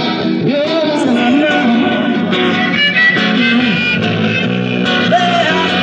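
Live reggae music: acoustic guitar and bass guitar played through a small amplifier, with a voice singing over them.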